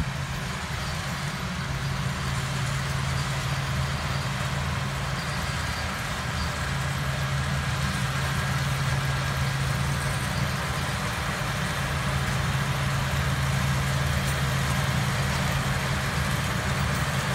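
Self-propelled peanut harvester's engine running steadily under load while the machine harvests, with the noise of its working machinery over the engine hum. It grows a little louder as the harvester comes closer.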